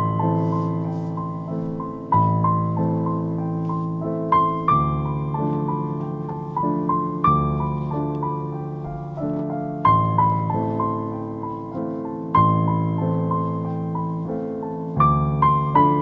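Gentle background piano music: a slow melody over chords that change about every two and a half seconds.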